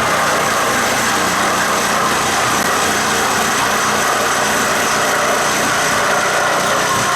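A power tool running steadily without a break, a loud even whine-and-hiss during renovation work on interior walls.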